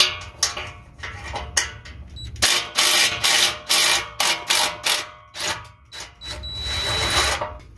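Cordless power tool running in short, irregular bursts, undoing the nuts on the muffler's exhaust clamps.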